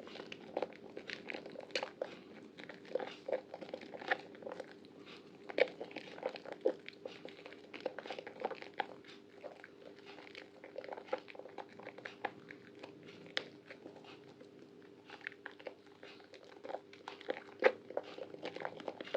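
Soaked bar of Prima Protect White soap being lathered and squeezed: a continuous run of irregular wet crackles and squishes. A faint steady hum sits underneath.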